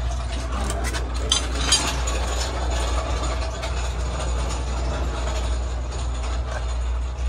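Steady low machine hum with sharp metallic clinks twice, about a second and a half in, as a truck's differential is being taken off.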